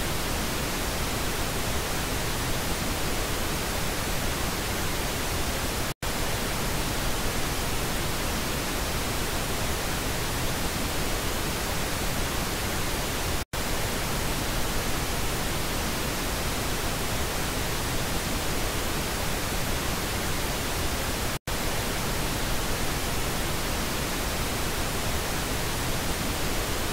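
Steady pink noise test signal for checking left and right stereo speaker channels, briefly cutting out three times, where it switches between channels.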